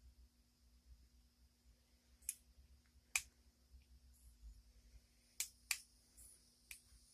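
Sharp metallic clicks of picking tools working inside a Brinks padlock, about five scattered ticks over a few seconds with the loudest near the middle and two close together later on.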